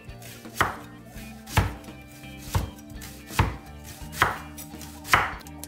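A kitchen knife slicing halved onions on a wooden cutting board: six sharp cuts, each landing on the board, about a second apart.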